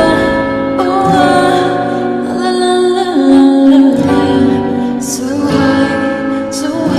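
Slow, tender music with sustained notes and a sung voice.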